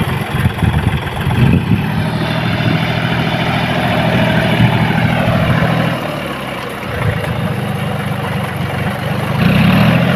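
John Deere 5045D tractor's three-cylinder diesel engine running under load as the cage-wheeled tractor works through a flooded, muddy paddy field. The engine note eases off about six seconds in, then picks up again and is loudest near the end.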